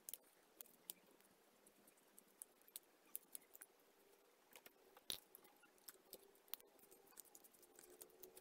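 Faint, scattered small clicks and taps from a Pentacon 29mm camera lens and a precision screwdriver being handled, with the loudest click about five seconds in. Near the end the screwdriver tip goes into a small screw on the lens barrel.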